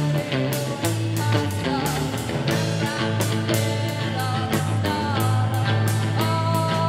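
Live rock band playing a song: guitar, bass and keyboards over a steady percussion beat.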